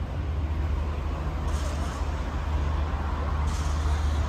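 Large motor yacht's machinery running with a steady low drone while the yacht docks stern-to, with a short hiss twice.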